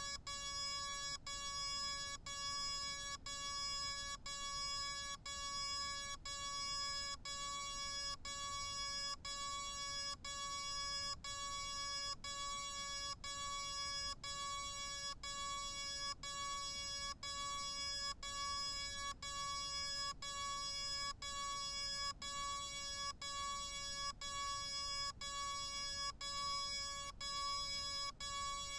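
A steady electronic tone repeating in long notes, each cut off by a short gap about once a second.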